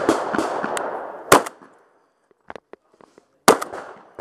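Remington 1100 semi-automatic shotgun fired three times: at the start, about a second and a half in, and about three and a half seconds in, the first shot trailing off in a long echo. A few faint clicks fall between the second and third shots.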